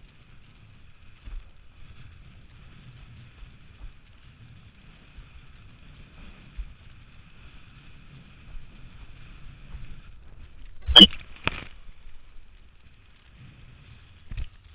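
Low rumble of wind and water on an action camera mounted on a windsurf boom while sailing over chop, broken by two sharp knocks half a second apart, the first the loudest, and a lighter knock near the end.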